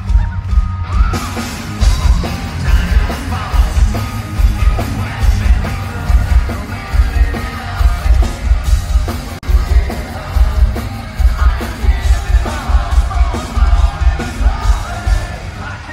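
Live hard rock band playing loud and full, with electric bass, guitars and driving drums under the singer's vocals.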